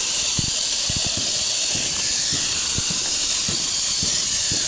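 Brushed motors and propellers of a WLtoys V262 quadcopter running in flight: a steady high hiss with a faint whine that drifts in pitch, and scattered low thumps. One of its motors is failing from overheating and worn plastic gears.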